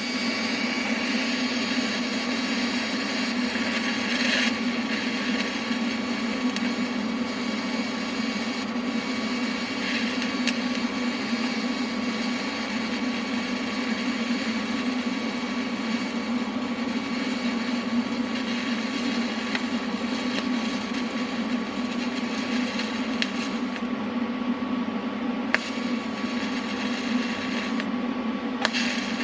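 TIG welding on a steel socket: a steady arc hiss over the welder's running hum, the hiss dropping out briefly twice near the end as the arc is broken.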